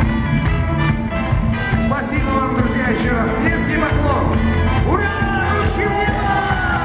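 Rock band playing live, with a voice singing over the band.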